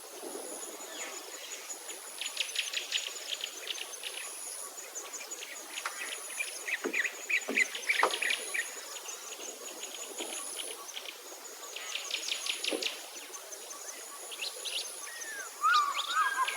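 Wetland birds calling in quick series of sharp chirps over a steady, high insect buzz that pulses on and off. Lower, gliding bird calls start near the end.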